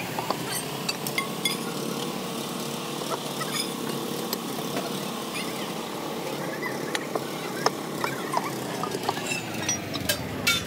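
Scattered sharp metallic clinks and knocks of a steel pipe lever and hand tools working the hub nuts of a truck wheel, over a steady engine-like drone.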